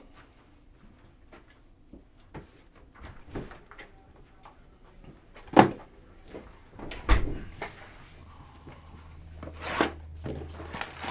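A cardboard hobby box of Panini Prizm Draft Picks football card packs being handled and opened: scattered clicks, scrapes and two louder knocks about halfway through, then a rustle near the end. A low steady hum comes in partway through.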